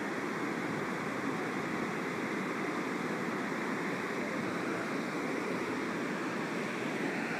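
Steady rush of fast water flowing in the creek below a dam.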